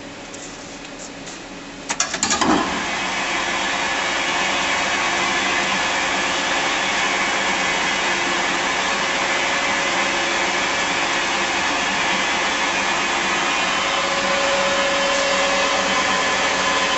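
Bridgeport Romi EZ-Path CNC lathe starting up with a brief clatter about two seconds in, then running steadily and loudly with a whirring noise and several steady whining tones.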